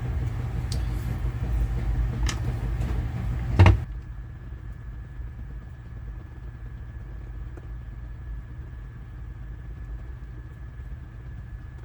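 A few sharp clicks and taps of small tools and parts being handled while the circuit board of an external hard drive is worked loose, the loudest near four seconds in. Under them a steady low hum, which drops to a quieter level just after the loudest click and carries a faint high steady tone.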